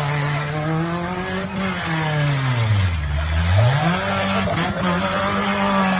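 A 2000 Mazda 121 hatchback's engine is held at high revs during a burnout. The revs drop low about three seconds in, then climb back and hold at a steady high pitch.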